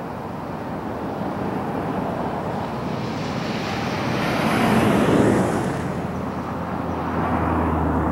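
Airbus A320 jet engines rumbling as the airliner rolls out on the runway after landing, swelling to a peak about five seconds in and then easing off. A low steady hum comes in near the end.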